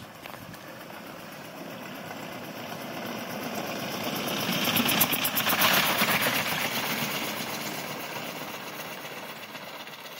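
1904 Cadillac's single-cylinder engine running with an even beat of firing strokes as the car drives up and past, getting louder to a peak about halfway through and then fading as it drives away.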